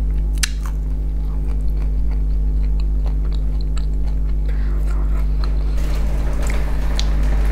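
Close-up chewing and biting of crispy fried fish, with scattered small crunches and wet mouth clicks, over a steady low hum.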